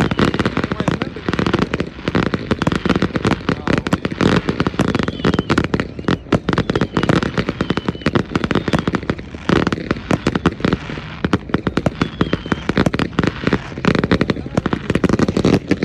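Fireworks and firecrackers going off in a dense, irregular volley, many sharp pops and bangs a second with a crackling spread.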